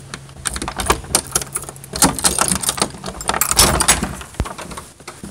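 A bunch of keys jangling and clinking at a door lock, with irregular clicks and rattles as the door is unlocked and opened, busiest around the middle.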